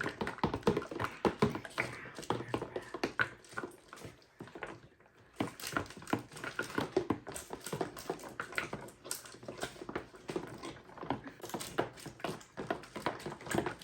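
Slime being stirred with a mixing stick in a container: a busy run of irregular sticky clicks and taps, easing off briefly partway through.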